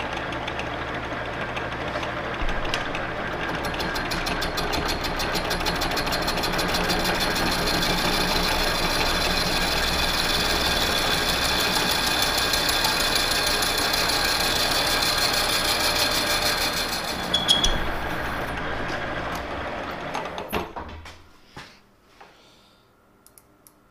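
Lathe running while a turning cut takes down a shaft built up with bronze-nickel Eutalloy spray weld: a steady machine run with the cutting noise on top, a little louder from about four seconds in. The lathe is shut off about eighteen seconds in and spins down, leaving a few light clicks near the end.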